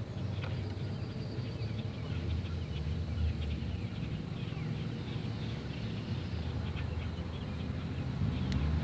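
Outdoor background sound: a steady low rumble with many faint, short bird chirps and small clicks over it.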